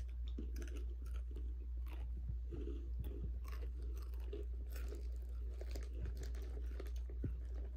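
Someone chewing Takis rolled tortilla chips: irregular crisp crunches, over a steady low hum.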